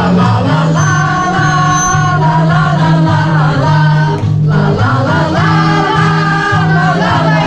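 Background music: a song with sung vocals over instrumental backing.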